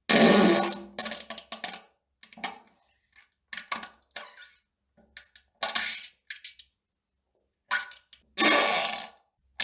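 A string of fart sounds: about ten separate bursts with silences between them, a long loud one at the start and another near the end, shorter sputters in between.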